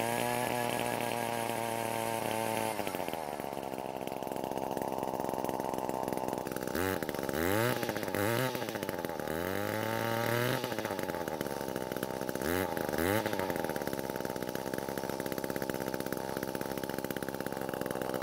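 Echo stick edger's two-stroke engine, its muffler plate removed, running at part throttle for a few seconds and then dropping to idle. It is then blipped up and down in a run of quick revs and one longer rev about ten seconds in, idling between. It is running on richened carburettor settings, with the low and high screws each turned out about half a turn, after starting but not staying running before.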